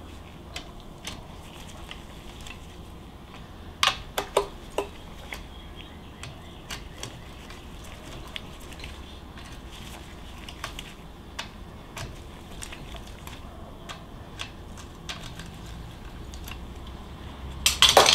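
Wrench and loose nuts clinking against metal as nuts are taken off a Porsche 912 engine case: scattered light ticks, with a few sharper clinks about four seconds in and a burst of loud clinks just before the end.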